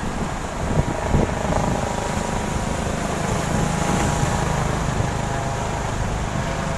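Strong sea wind rumbling and buffeting on the microphone, with a faint steady motor drone underneath.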